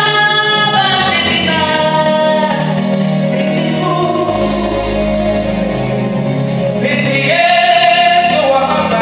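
Gospel song: a singer holding long, slowly moving notes over steady instrumental backing with a low bass line.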